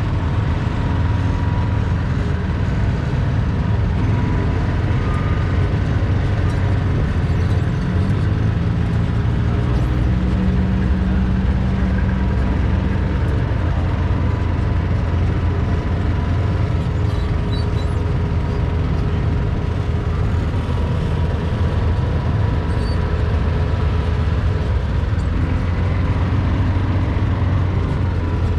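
A small vehicle's motor running steadily while it is driven along, heard as a constant low rumble with a thin steady whine above it.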